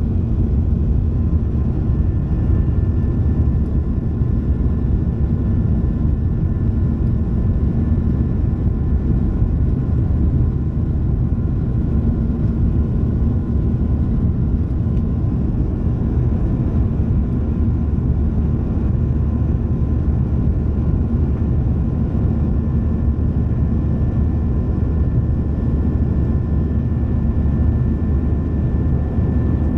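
Cabin noise of a Boeing 737-700 climbing out after take-off: a steady low rumble of the CFM56-7B engines and airflow, with a few faint steady whining tones above it.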